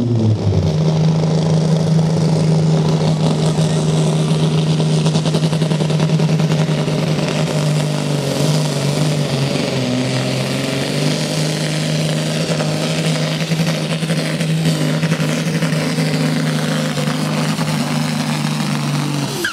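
Diesel engine of a red Case IH farm-class pulling tractor running flat out under load as it drags the weight sled, a loud steady drone whose pitch sags slightly about ten seconds in and then recovers.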